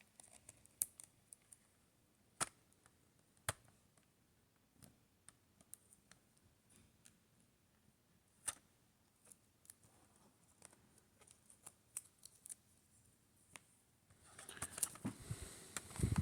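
Faint handling of a CD package: scattered small clicks and taps, then a louder spell of rustling and clicking about two seconds before the end.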